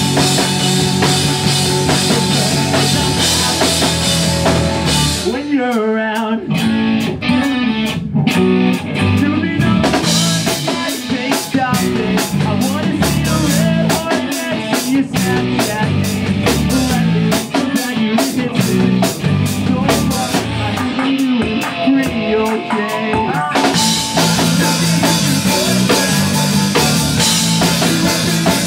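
Pop-punk band playing live: drum kit, electric guitars and bass. About five seconds in the band drops to sparse hits, then builds back, and the full band comes back in about 24 seconds in.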